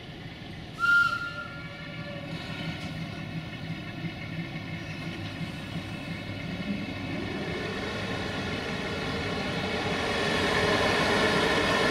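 060-DA (LDE2100) diesel-electric locomotive with its Sulzer diesel engine: a brief high toot about a second in, then the engine throttling up, getting louder with a rising whine as the locomotive sets off to shunt.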